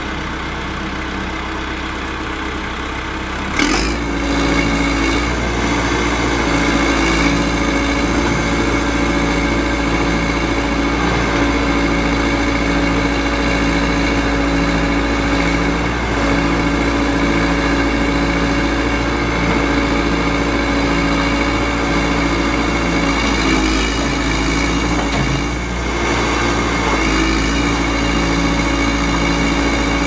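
John Deere 310D backhoe loader's four-cylinder turbo diesel running steadily as the backhoe boom is worked. About four seconds in there is a knock and the engine speeds up, and near the end it briefly dips with another knock.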